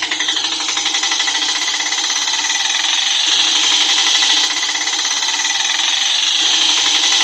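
A small engine running with a steady, fast rattle, in the manner of an auto rickshaw's engine.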